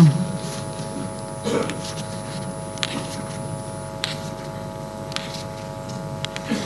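Steady electrical mains hum through the sound system, with a few faint clicks and soft rustles.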